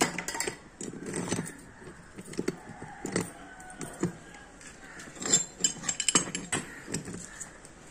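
Irregular metallic clinks, scrapes and knocks as a pipe wrench and the iron plunger assembly of a hand pump are handled while a new plastic cup washer is fitted and tightened. The sharpest clinks come about five to six seconds in.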